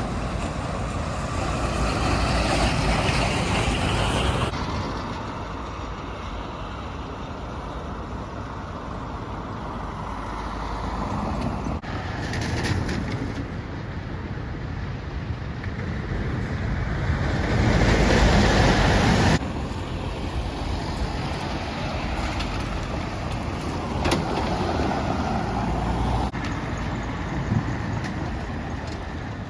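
Steady rumbling outdoor noise, like heavy engines running, with wind-like hiss; its loudness shifts abruptly a few times.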